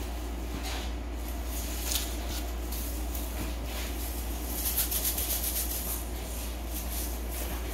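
A steady low hum with brief soft rustles and scratches over it. The loudest cluster comes about five seconds in.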